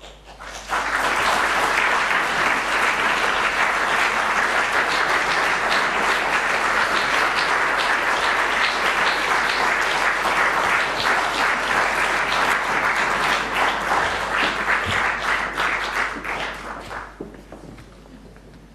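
Audience applauding: the clapping starts about a second in, holds steady and dense, and dies away near the end.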